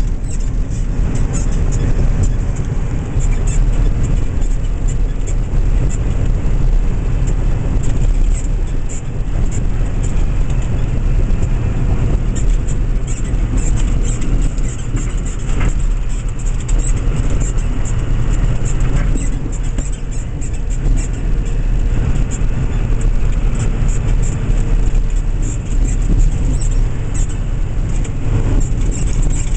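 In-cab sound of a 2000 Ford F-650 flatbed tow truck cruising at highway speed: its Cummins ISB 5.9-litre inline-six diesel running steadily under road and tyre noise. Frequent light ticks and rattles sound throughout.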